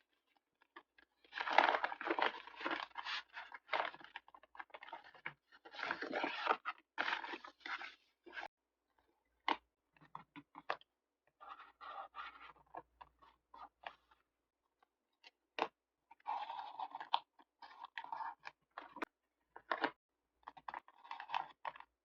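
Paper and stickers being handled for journal decorating: crinkly rustling and scraping in irregular bursts a second or two long, with scattered single sharp taps between them.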